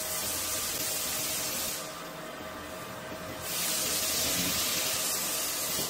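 Tube sterilizer running, with a steady high hiss of steam over a faint steady tone while it heats to its sterilizing temperature. The hiss cuts out for about a second and a half near two seconds in, then comes back.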